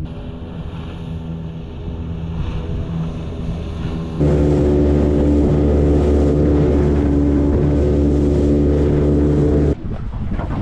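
Outboard motor of an aluminium tinny running steadily at speed, moderate at first, then much louder and closer from a little under halfway. It cuts off suddenly near the end, leaving wind buffeting the microphone.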